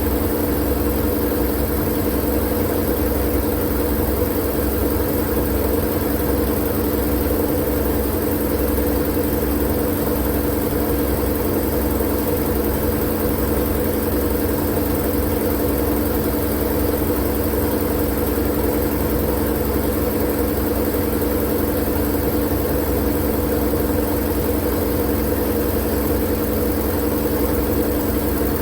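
Steady white-noise sleep sound: an even hiss over a low, unchanging hum, with no breaks or changes.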